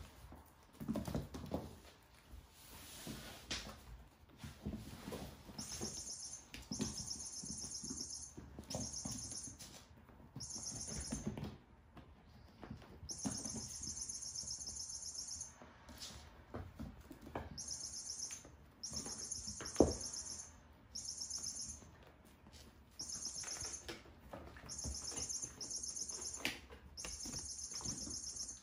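Kittens playing on a hard floor: paw scuffles and soft knocks of toys and beds, with one sharp knock about 20 seconds in. Over this come repeated short bursts of high, rapid chirping trills, starting about five seconds in.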